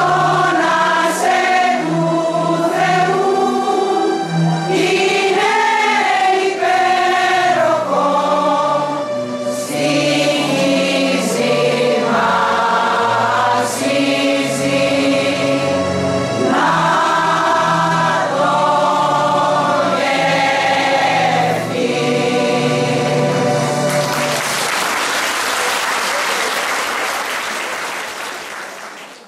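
Women's choir singing a Greek song with electronic keyboard accompaniment, in long held phrases. About 24 seconds in the song ends and the audience applauds, the clapping fading out at the end.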